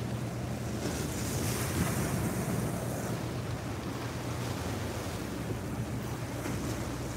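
Choppy harbour water washing and splashing against a rocky seawall, with wind buffeting the microphone; the splash swells about a second in and eases off a couple of seconds later.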